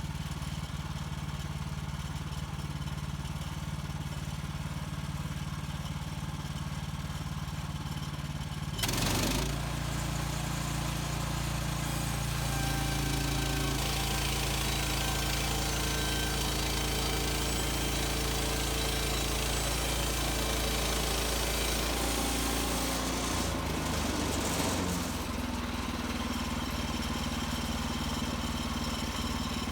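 Gas engine of a Woodland Mills HM130 Max portable bandsaw mill running steadily. About nine seconds in it grows louder and the hiss of the band blade sawing through a spruce log joins it. The sawing eases off a few seconds before the end, leaving the engine running.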